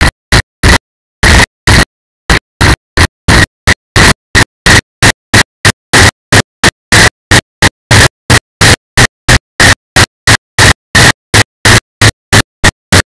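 Loud, harsh noise chopped into short bursts about three times a second, with dead silence between them. The audio track is dropping out in a regular stutter, which is typical of corrupted or glitching camera audio. There are longer gaps about a second in.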